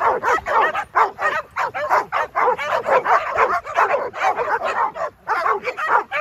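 A large pack of dogs barking and yipping over one another, several barks a second without a break.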